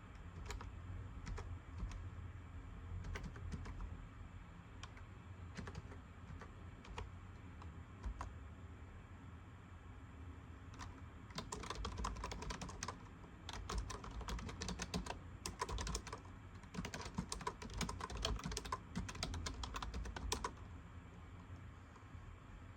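Typing on a computer keyboard: a few scattered keystrokes at first, then a long run of fast, continuous typing from about halfway through that stops a couple of seconds before the end.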